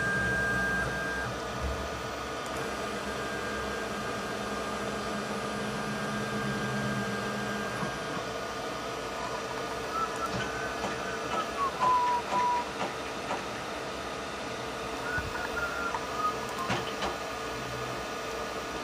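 Steady machine hum with a faint high whine. The low hum and the whine drop away about eight seconds in, and a few short, faint chirping tones come later.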